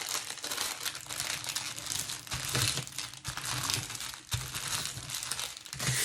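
Plastic packaging crinkling and rustling as it is handled, with a couple of soft knocks about two and four seconds in.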